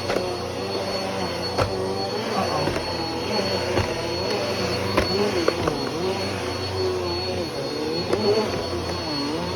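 Bissell PowerForce Compact Turbo bagless upright vacuum running on carpet: a steady motor hum with a high whine, its pitch wavering up and down, with a few sharp clicks.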